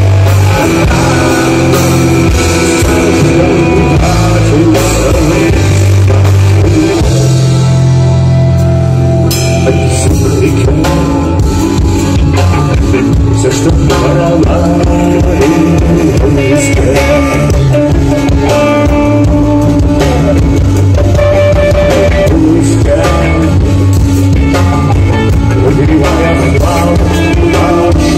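Rock band playing live: electric guitars and a drum kit, with a male voice singing into the microphone.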